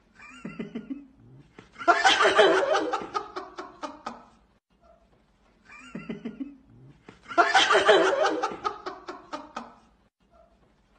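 A person laughing hard in a string of quick ha-ha bursts that trail off, set off by a short giggle. The same stretch of laughter plays twice.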